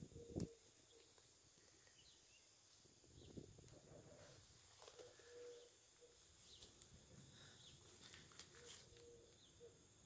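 Faint birdsong: scattered short, high chirps from small birds, with a brief low call heard twice about halfway through and again near the end. A single bump sounds right at the start.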